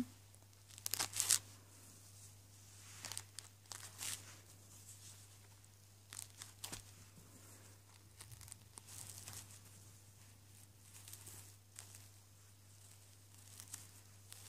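Hook-and-loop (Velcro) fastening on felt pieces being pulled off and pressed onto a fabric page: short, quiet ripping sounds, the strongest about a second in, then scattered through, with soft fabric rustling between them over a faint steady hum.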